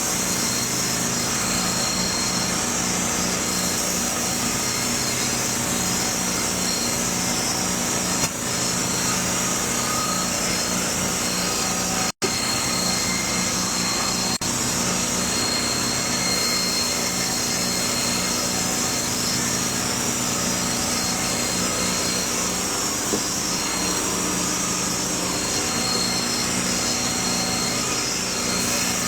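A small motor running steadily, with a constant high whine over a low hum; it cuts out for an instant about twelve seconds in.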